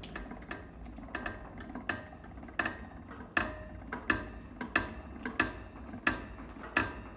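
Fiat 500 L's factory post jack being cranked by hand to raise the car: a steady run of sharp metallic clicks, about three every two seconds.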